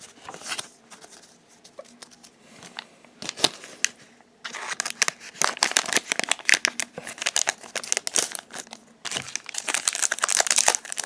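Foil wrapper of a Pokémon trading-card booster pack crinkling and tearing as it is handled and ripped open: a few light crackles at first, then dense crinkling from about halfway in, with a brief pause near the end.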